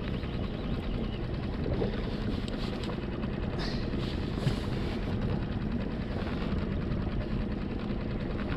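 A skiff's small outboard motor running steadily.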